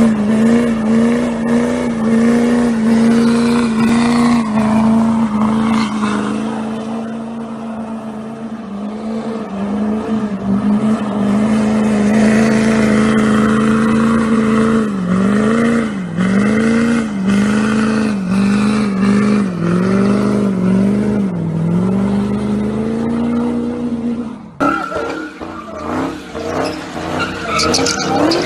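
Pickup truck engine held at high revs during a tyre-smoking burnout, a steady drone whose revs dip and climb again several times past the middle. Near the end it gives way to a Dodge Charger's engine revving as its tyres skid in a drift.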